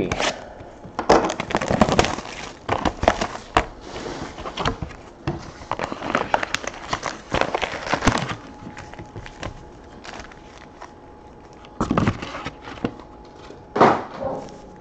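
Plastic shrink-wrap and cardboard of a trading-card box being slit with a box cutter and torn open, then foil card packs crinkling as they are pulled out and stacked on a wooden table. The crackly handling is busiest in the first half, quieter later, with a few short bursts near the end.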